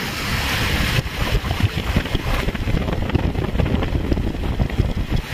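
Wind buffeting the phone's microphone on a moving motorcycle: a heavy, uneven rumble of rushing air with road and engine noise underneath.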